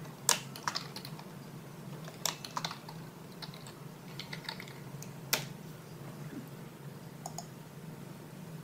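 Computer keyboard typing: scattered keystrokes in short, irregular runs, a few louder than the rest, over a steady low hum.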